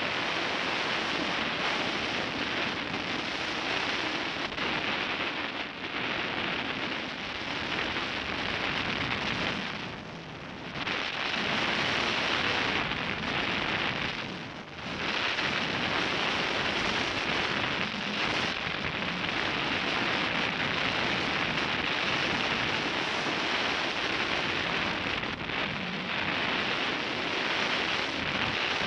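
Wind rushing over a microphone on a hang glider in flight: steady airflow noise from the glider's airspeed that eases off briefly twice near the middle.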